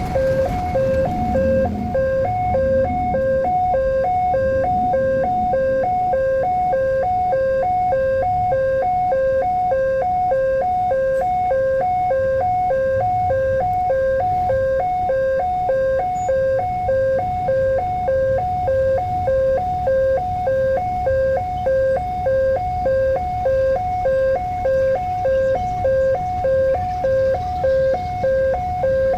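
Level crossing warning alarm sounding, two tones alternating in an even, unbroken rhythm: the signal that a train is approaching and the barrier is closing or closed.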